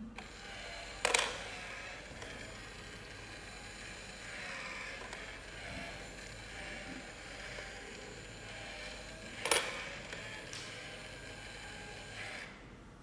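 Battery-powered face coin bank's small motor running through its chewing cycle as it swallows a coin, with two sharp clicks, about a second in and again near ten seconds, before it stops near the end.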